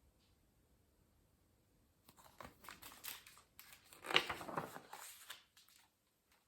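Near silence, then about two seconds in, paper rustling and crinkling for about three seconds as the pages of a picture book are turned.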